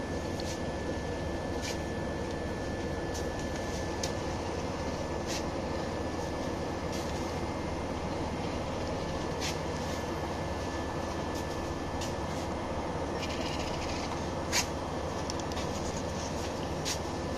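Steady running noise of a Scania OmniLink city bus heard from inside the passenger cabin, with a faint steady whine over it. A few light clicks are scattered through it, the sharpest a few seconds before the end.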